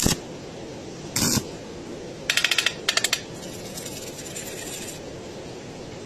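Metal clinking and tapping in a workshop: a sharp knock, a short scrape about a second in, then two quick runs of rapid clicks, about six and then four in a row.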